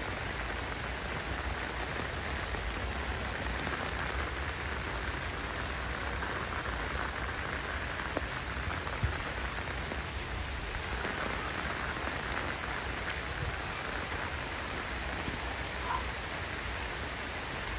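Heavy downpour: rain falling steadily, an even hiss, with one brief tap about nine seconds in.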